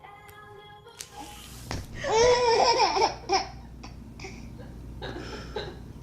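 A small child laughing in quick giggling bursts, loudest from about two seconds in, then softer laughter and babble near the end.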